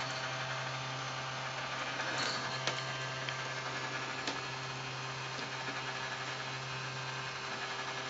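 Steady hum of the small electric motor in a motorized Cat Power Tower turning its feather-toy carousel, with a few faint taps over it.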